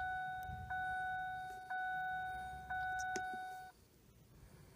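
The 2008 Ford Fusion's dashboard warning chime sounding with the ignition on, struck about once a second with each tone fading before the next. It stops a little before the end, leaving near quiet.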